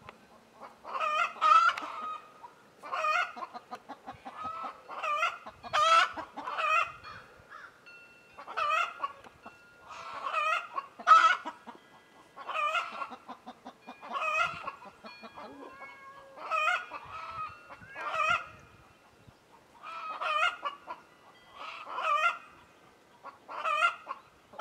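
Domestic hens clucking and cackling in repeated bouts, a burst of short calls every second or two.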